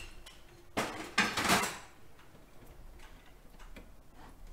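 A glass measuring jug being put down on a hard surface: a light knock a little under a second in, then a louder clunk and short scrape lasting about half a second.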